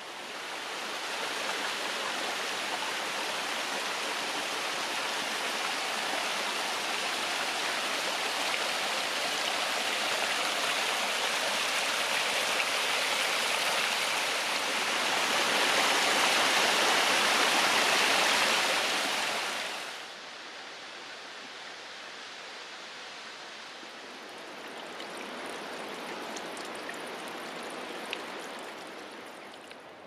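Steady rush of falling water from a small waterfall splashing down a rock face, swelling to its loudest just after the middle, then dropping suddenly about two-thirds of the way through to a fainter, steady rush.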